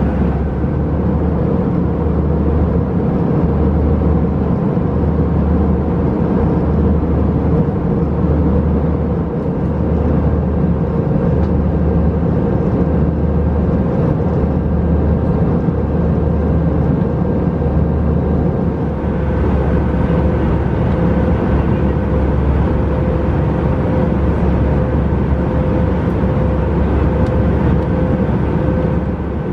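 Airbus A321 cabin in flight: a loud, steady drone of engine and airflow noise. A low throb pulses about once a second for the first two-thirds, then evens out.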